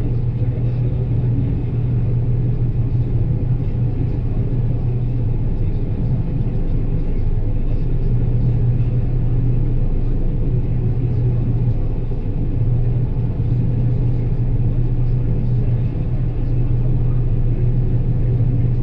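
John Deere 9770 combine harvester running steadily while cutting soybeans: a constant, even engine and machine drone with a strong low hum.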